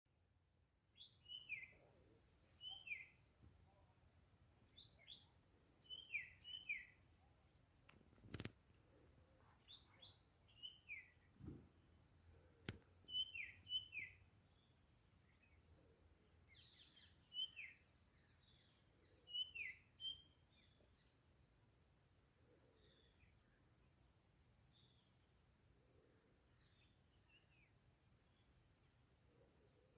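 A bird calls again and again with short whistled notes that slide downward, often in quick pairs; the calls thin out and grow fainter after about twenty seconds. Under them runs a steady high-pitched insect drone, like crickets, with a few faint clicks.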